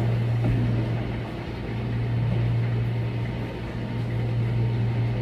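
Steady low hum at one pitch over an even hiss of background noise, with no clear events.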